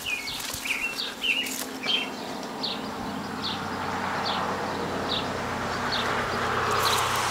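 A songbird repeats a short, high, falling chirp over and over, one or two a second. Behind it a low rumble and hiss build slowly from about three seconds in.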